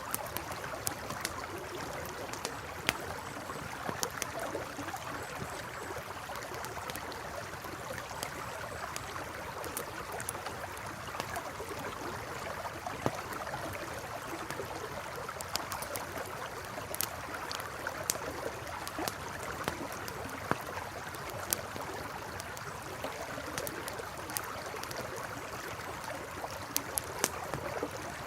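A river flowing steadily, with a wood campfire crackling over it in frequent, irregular sharp pops.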